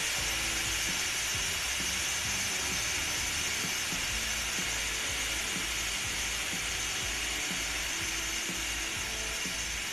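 Steam hissing steadily out of a ChefKing electric pressure cooker's release valve while its release button is held down, venting the remaining pressure so the lid can be opened; the hiss eases off slightly towards the end.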